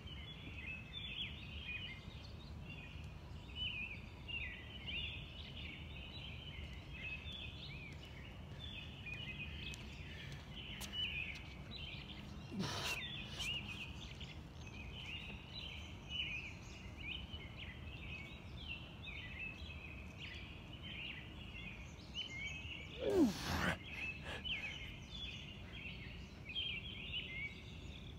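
A dense night chorus of insects chirping steadily. A man doing push-ups gives a grunting exhale with a falling pitch twice, about halfway through and again near the end.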